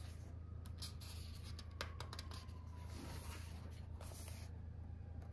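Faint paper rustling as a colouring book's page is turned and smoothed flat by hand, with soft slides and light ticks of paper, over a steady low hum.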